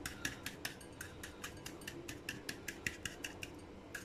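Plastic cup repeatedly patting and pressing dry shredded kunafa dough into a non-stick frying pan, making rapid light crisp taps, several a second.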